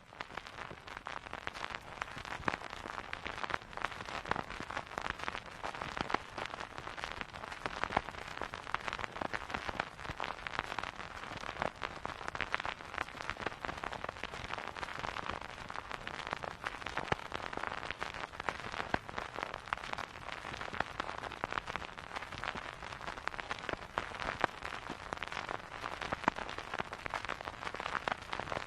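Vinyl record surface noise: a steady stream of dense crackles and pops over a soft hiss, with no music playing.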